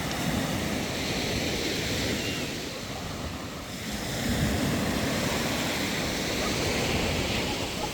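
Sea waves breaking and washing up a beach, swelling twice about four seconds apart, with wind buffeting the microphone.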